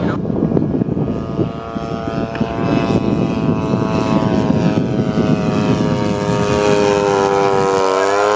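Quarter-scale RC Nieuport 17's Quadra 35 two-stroke gas engine and propeller running steadily in flight. It grows louder as the plane comes in on a low pass, and its pitch dips and then climbs again near the end.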